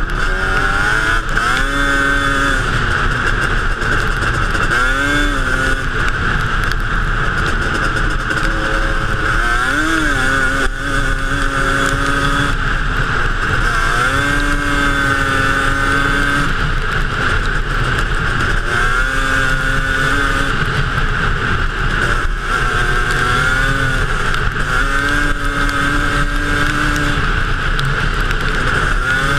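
Yamaha Banshee's 350 cc twin-cylinder two-stroke engine on Toomey T5 expansion-chamber pipes, running hard under way. Its pitch climbs, holds and drops back over and over as the throttle is worked.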